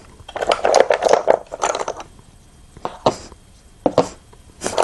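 Go stones being handled and set down on a board: irregular clattering and clicking in several short bursts.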